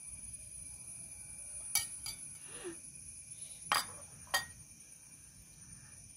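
A metal spoon clinking against a bowl and a plastic tray while curry is served onto rice: four sharp clinks in two pairs, about two seconds apart, over a steady high-pitched tone.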